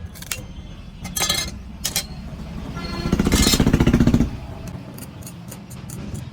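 Road traffic rumbling steadily, with a motor vehicle's engine running loud and close for about a second from about three seconds in. A few short sharp clinks come earlier.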